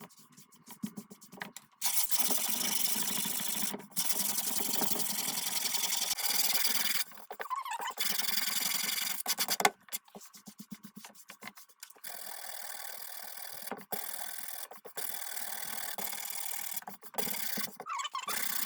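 Sandpaper sanding a wooden tabletop: a steady, even scratching hiss in long stretches of a few seconds each, broken by short pauses.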